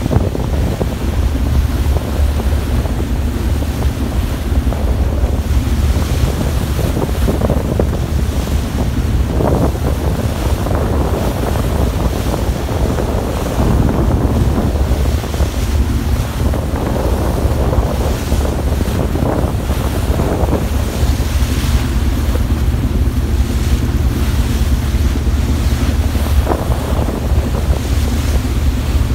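Wind buffeting the microphone over the rush of a ship's wake churning and splashing alongside the hull, with a steady low rumble underneath.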